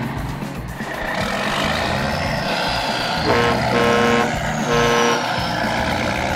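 Heavy truck engine running steadily, with a reversing alarm beeping about three times around the middle.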